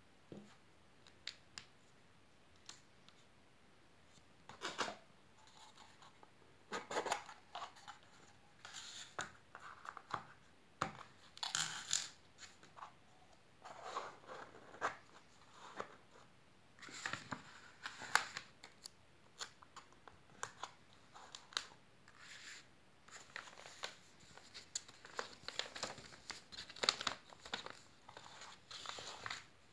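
Paper and a small kraft-cardboard box being handled by hand on a tabletop: irregular rustles, crinkles, scrapes and light taps as the box is handled and a paper label pressed onto it.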